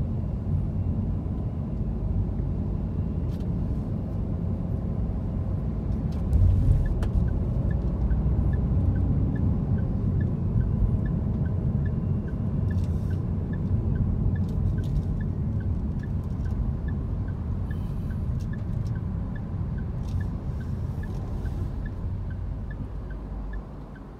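Car driving in city traffic, heard from inside the cabin: a steady low rumble of engine and tyre noise, with a bump about six seconds in and a regular light ticking, about two a second, from about seven seconds on. The rumble drops near the end.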